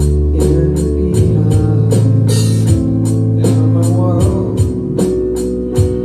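Live band playing a rock song on electric bass guitar, drum kit and keyboard, with held bass notes under a cymbal or tambourine ticking steadily about four times a second.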